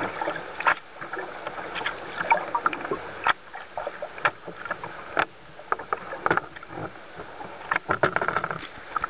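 Choppy river water splashing and slapping against a canoe's hull, with sharp irregular slaps and knocks over a steady wash of moving water.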